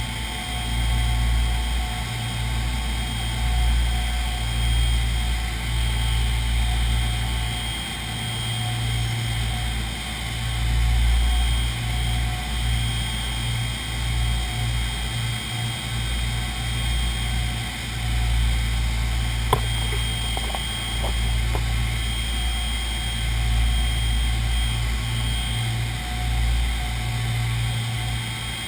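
Four Wright R-3350 radial engines of a B-29 Superfortress droning steadily in flight, heard from inside the nose cockpit as a low rumble that swells and fades, with a thin steady whine above it. A single sharp click about two-thirds of the way through.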